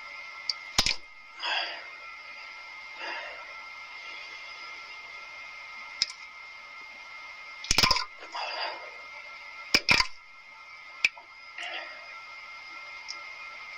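Diarrhea being passed: several sharp wet cracks and short squishy sputters, spaced irregularly over a steady hiss.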